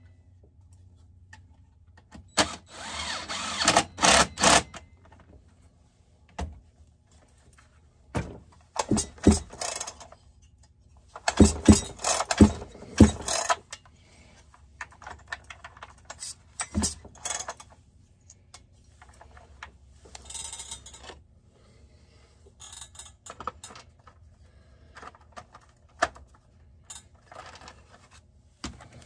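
Cordless drill-driver running in a few short bursts, driving screws into a chainsaw, between stretches of small metal parts and hand tools clicking and clattering on the workbench.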